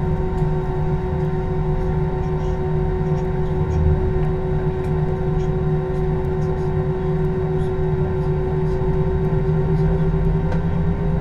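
Jet airliner's engines idling, heard from inside the cabin while the plane stands waiting: a steady hum with a steady whine that rises slightly near the end.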